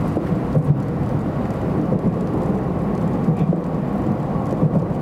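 JR Central 700 Series Shinkansen running at speed, a steady low rumble of wheels on track heard from inside the passenger cabin.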